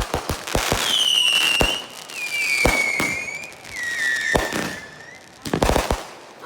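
Consumer fireworks: a quick run of sharp pops, then three whistling fireworks in a row, each a falling whistle lasting a second or more. A cluster of bangs comes near the end.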